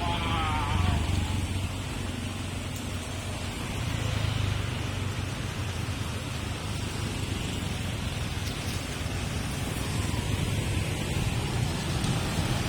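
Street traffic on a wet road: vehicles passing with a steady hiss of tyres on water and engine rumble that swells about a second in and again around four seconds.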